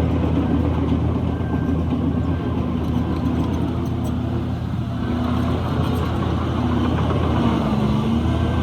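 Heavy diesel engine of earthmoving machinery running steadily, its level easing slightly mid-way and its pitch shifting a little near the end.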